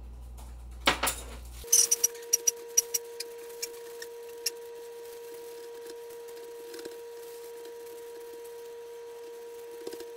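A brief rustle, then a quick run of sharp clicks and knocks as a meatloaf mixture is handled in a plastic-lined slow cooker. A steady hum starts about two seconds in and holds.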